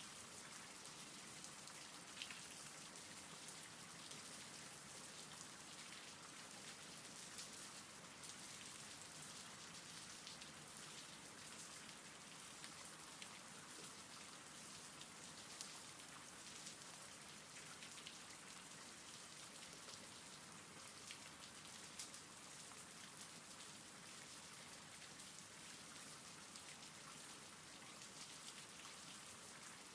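Faint, steady rain falling, with an occasional slightly louder drop ticking through the patter.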